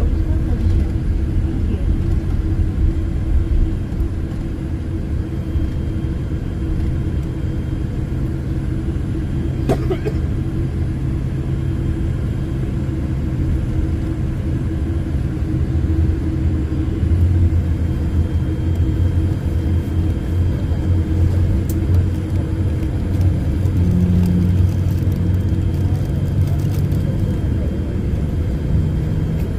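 Steady low rumble inside the cabin of a Boeing 787-8 on the ground, its GEnx-1B engines at low power while it taxis, with a faint steady hum and one short click about ten seconds in.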